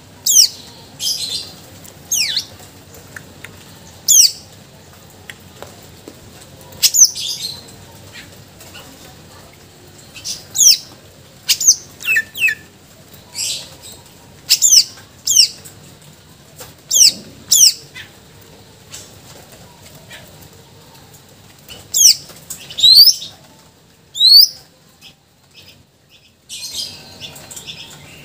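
Male greater green leafbird (cucak ijo) singing: loud, sharp whistled notes that sweep steeply in pitch, given singly or in quick pairs every second or two, from its repertoire of mimicked songs. The notes pause for about two seconds near the end, then resume as softer chatter.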